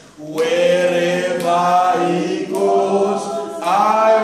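Unaccompanied gospel singing by a man's voice, with no instruments. It moves in slow phrases of long held notes, with a short breath gap at the start and a rising slide into the last phrase near the end.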